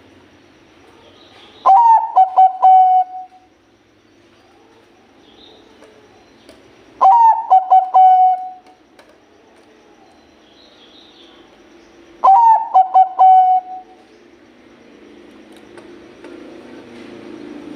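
Bangkok-type zebra dove (perkutut) singing its staccato cooing song. There are three phrases about five seconds apart, each a short rising note followed by a quick run of clipped coos.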